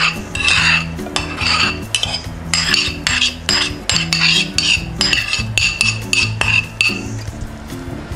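Metal spoon scraping chopped onion out of a bowl and clinking against the bowls, short clinks and scrapes about every half second. Background music plays steadily underneath.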